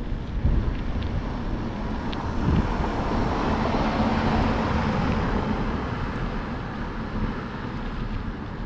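A car overtaking from behind: engine and tyre noise swelling to a peak about halfway through, then fading as it pulls away. Steady wind noise on the microphone underneath.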